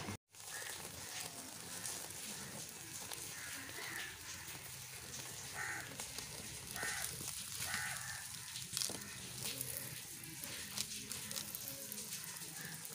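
Open wood fire crackling with scattered sharp pops under a whole duck being singed, while crows caw several times in the background.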